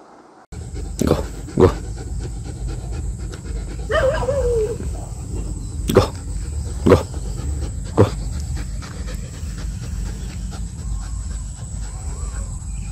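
German Shepherd panting while walking on a leash, with several sharp clicks and a brief falling whine about four seconds in.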